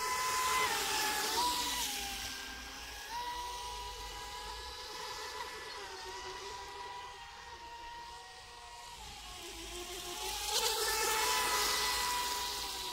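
Two radio-controlled racing speedboats running flat out, their electric motors giving a whine that slides up and down in pitch with the throttle. It swells, with a hiss of spray, as the boats come nearest, about a second in and again near the end.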